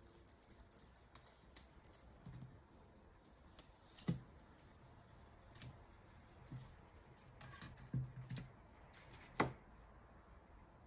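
Scattered clicks and brief crackles as a scan tool's touchscreen digitizer glass is pried and peeled out of its plastic front bezel. There is a sharp snap about four seconds in, and the loudest near the end.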